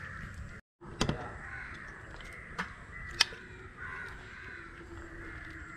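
Crows cawing repeatedly, with a few sharp clicks in between and a brief dropout of all sound about half a second in.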